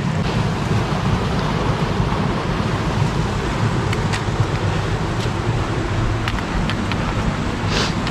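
Steady rush of creek water close by, with a few brief clicks and splashes from wading through it.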